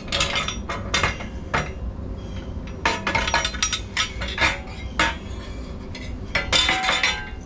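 The Royal Enfield Himalayan's stock exhaust pipe being worked loose and pulled free, giving a run of irregular metallic clinks and knocks, some ringing briefly.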